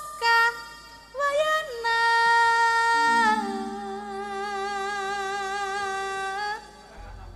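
A female Javanese singer (sinden) singing a drawn-out phrase. After a few short notes she holds a long high note, slides down about three seconds in, and holds the lower note with a wavering vibrato until it stops shortly before the end. A low steady tone sounds beneath the held notes.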